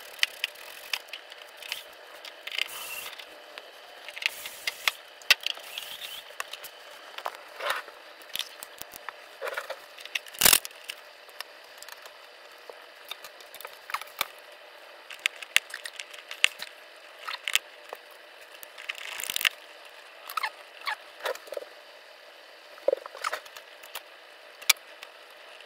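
Pliers and fingers working at the wiring connectors on a 3D printer's mainboard: scattered sharp clicks and short scrapes of metal and plastic, with one loud knock about ten seconds in. He is pulling at stepper motor connectors that are hot-glued into the board.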